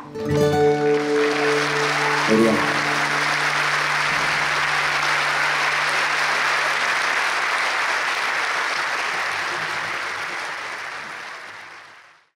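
Acoustic guitar's final chord ringing out, then an audience applauding steadily, fading out near the end.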